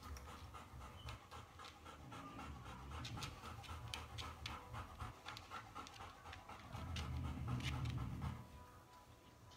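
Puppies panting in quick short puffs, about four a second, under a low rumble that swells near the end.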